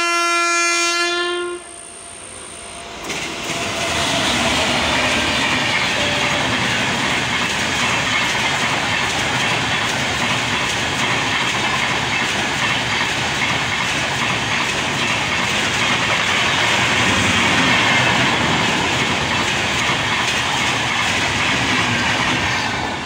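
Passing express train: one long, steady horn blast at the start, then the train rushing past at speed, a loud, even rush of wheels on rails with a clickety-clack, dropping away near the end.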